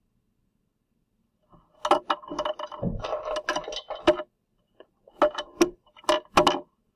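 Clatter and clicking of a plastic highlighter and other small hard objects being handled on a desk, in two bursts: one of about two and a half seconds starting a second and a half in, then a shorter one about a second later.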